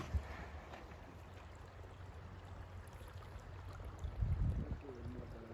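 Steady rush of flowing creek water, with a low rumble underneath that swells briefly about four seconds in.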